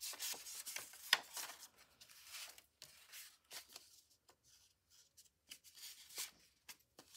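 Paper index cards rustling and sliding against each other as they are pulled apart from a stack by hand. Dense rustling for about two seconds, then only occasional soft rustles and ticks as a card is flexed.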